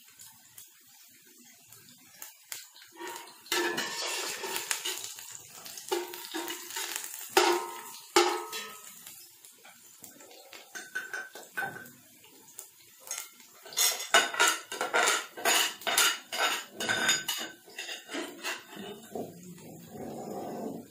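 A perforated steel skimmer scraping and clinking against a stainless steel pot as it stirs sliced onions frying in oil, with a faint sizzle underneath. The strokes are irregular, and there is a quick run of them, about three a second, roughly two-thirds of the way in.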